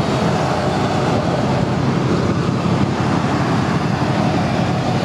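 2008 Honda Shadow VT750C2's liquid-cooled 750cc V-twin idling steadily through its factory exhaust. It has a bit of a rumble, which the dealer puts down to the baffles maybe having been taken out.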